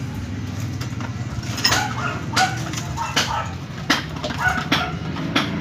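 Hand tools knocking and clinking on the water-meter pipe fittings: about six sharp strikes, roughly a second apart, over a steady low hum.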